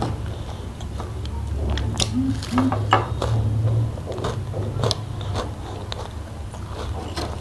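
Close-miked eating sounds: a person chewing and biting food, with scattered sharp wet clicks and crunches, the busiest about two to three seconds in, over a steady low hum.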